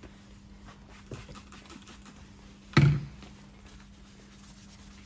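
A few faint handling clicks, then one short, loud knock about three seconds in, a plastic spray bottle of cleaner being set down on a glass-topped workbench. A steady low hum from the ventilation hood runs underneath.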